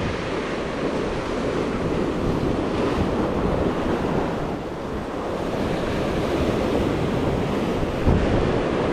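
Sea waves washing against the shore, with wind buffeting the microphone; a wave surges louder near the end.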